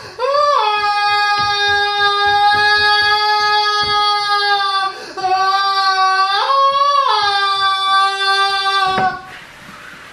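One voice holding a long, high, wordless sung note, almost level, with a brief upward swoop near the start and another around six seconds in; it breaks off about nine seconds in.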